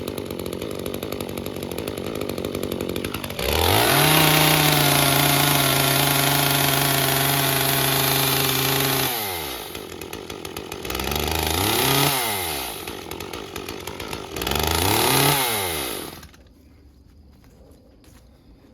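Echo CS-355 two-stroke chainsaw idling, then held at full throttle for about five seconds, dropped back, revved up twice more and shut off near the end. It sounds like the same fault as the first saw: it won't rev out to wide-open throttle.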